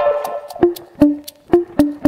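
Background music in a sparse break: the bass and guitar drop out, leaving sharp wood-block-like clicks at about four a second with short plucked notes.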